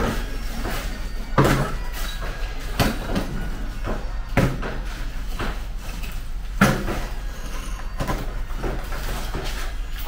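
Chunks of broken concrete rubble being picked up by hand and dropped into a plastic bucket, knocking and clattering every second or so, with the loudest knocks about a second and a half in and past the middle.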